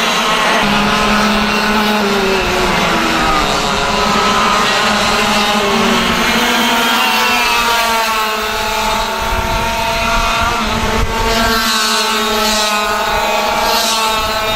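Several racing kart engines running hard, their overlapping notes rising and falling in pitch as the karts accelerate and slow.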